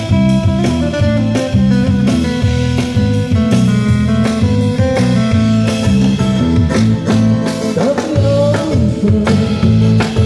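Busker band playing a song live: guitar and bass over a drum kit with a steady beat, and a voice singing briefly near the end.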